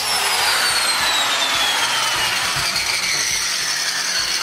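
4-inch angle grinder cutting through a rusted, rounded-off toilet floor-bolt nut, with a loud high hiss and a whine that falls steadily in pitch over about three seconds.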